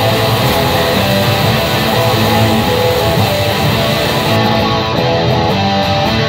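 Background music with strummed guitar.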